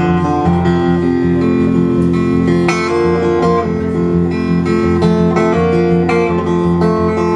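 Live acoustic band playing an instrumental passage: acoustic guitar strummed about once a second over held notes and bass.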